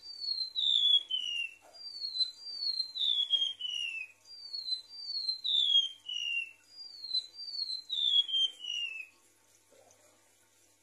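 Golden-bellied gerygone (remetuk laut) singing: a run of high, thin whistles, each sliding downward, in groups of two or three. The song stops about nine seconds in.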